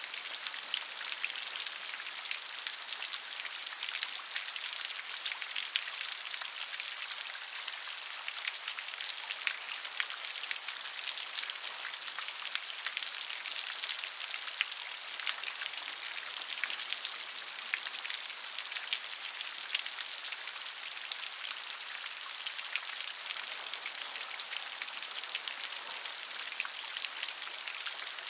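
Steady rain with many distinct drops pattering on a surface, a constant high hiss without thunder or low rumble.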